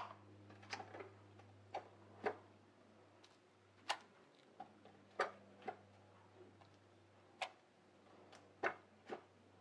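Faint, irregular sharp clicks or taps, about a dozen spread unevenly over several seconds, over a steady low hum.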